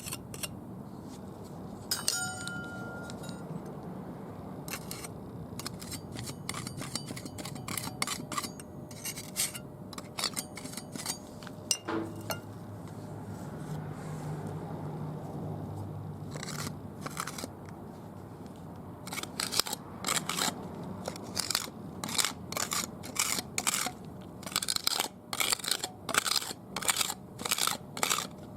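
A putty knife scraping and tapping concrete patching compound into a crack in concrete, in short strokes that become quick and regular, about one or two a second, in the second half.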